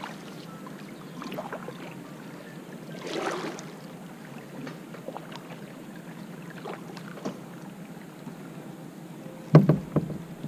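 Double-bladed kayak paddle stroking through calm water: the blades dip and drip in small splashes. Two sharp knocks come near the end.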